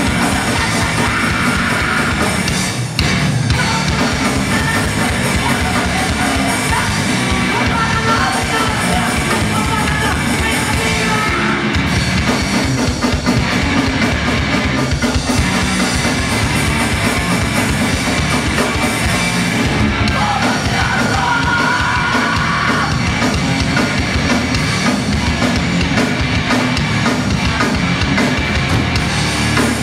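Hardcore punk band playing live and loud: fast drums, distorted electric guitars and bass, with a vocalist yelling into a microphone.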